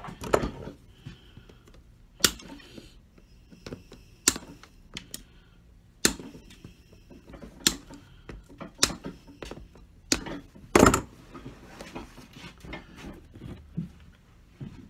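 Irregular sharp clicks and knocks from a hand tool working the nails left in a cowboy boot's heel seat after its plastic heel block has been pulled off. The loudest knock comes about eleven seconds in.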